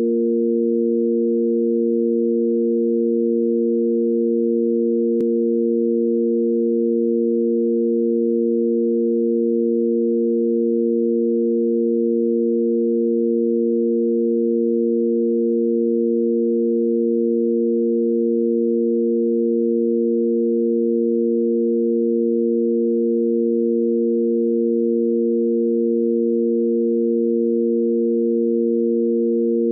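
Steady electronic drone of three pure sine tones: A# as the root, the fifth above it and the A# an octave up, held unchanging as a sine-wave tanpura (shruti) pitch reference for singing.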